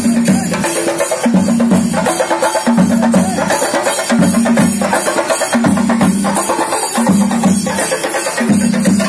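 Procession drumming: barrel drums beaten with sticks in a fast, dense rhythm, with a low drum phrase that repeats about once a second.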